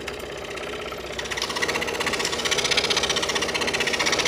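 Scroll saw running, its fine blade moving rapidly up and down with a fast, even pulse as it cuts a wavy scalloped edge into a plywood puzzle panel. The cutting grows louder and brighter about a second in.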